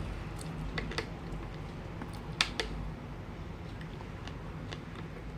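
Tableware being handled: a few light clicks and taps, a pair about a second in and a louder pair around two and a half seconds in, over a low steady hum.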